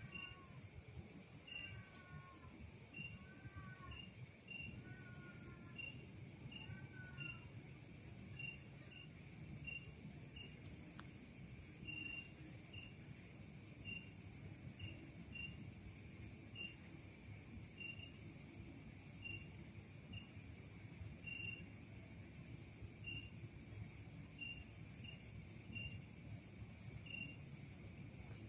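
A night insect, likely a cricket, chirping faintly in a steady rhythm about once a second, over a low background hum. In the first several seconds a few short gliding calls from another animal sound beside it.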